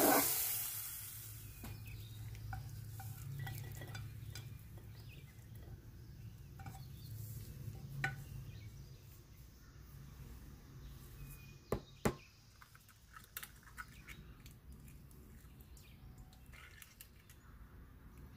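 Diced onion and peppers sizzling in oil, cutting off within the first second. Then a quiet kitchen with a few light clinks and taps of dishes, the sharpest two close together about twelve seconds in.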